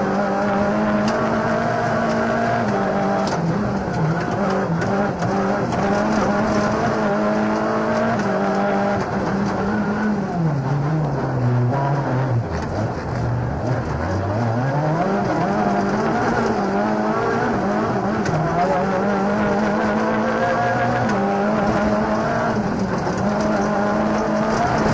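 Rally car engine heard onboard, pulling hard at high revs along a stage. About ten seconds in, the revs fall steeply as the car slows, bottom out for a couple of seconds, then climb back up as it accelerates away again.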